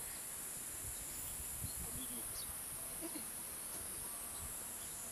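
A steady, high-pitched insect chorus buzzing in the trees.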